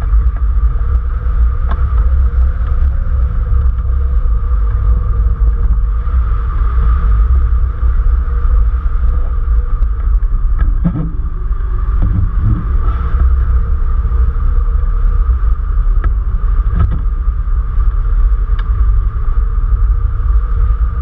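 Wind buffeting the microphone of a camera mounted on a hang glider's wing in flight: a loud, steady low rumble.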